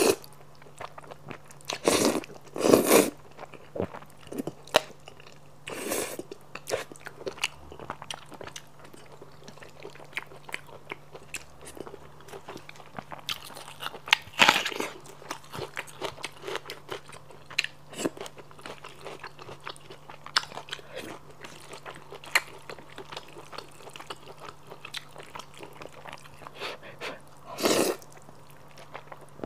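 Close-miked eating of noodles with sweet-spicy squid: wet chewing and smacking throughout, broken by several loud slurps as noodles are sucked up from chopsticks, around two to three seconds in, about six seconds in, near the middle and near the end.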